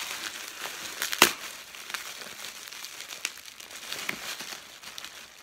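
Crumpled packing paper crinkling and rustling in a cardboard box as hands dig through it for items, with one sharp click about a second in.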